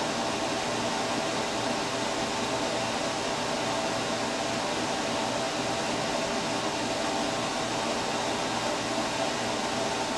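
Steady whir of a running fan, with a faint even hum underneath.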